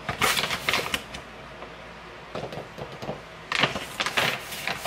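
Crinkling and clicking of a plastic protein-powder pouch and scoop being handled, in two quick bursts: one at the start and one about three and a half seconds in, with a quieter stretch between.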